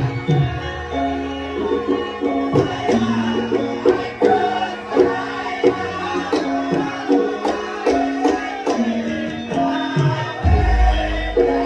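Javanese gamelan playing accompaniment for lengger mask dance: metallophones ringing steady pitched notes over quick kendang hand-drum strokes, with a deep gong stroke near the end.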